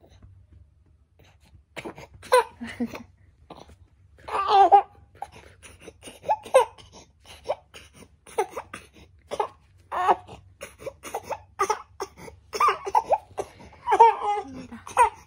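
A four-month-old baby fussing in short, repeated whimpering cries, starting about two seconds in and coming roughly once a second, bunching closer together near the end.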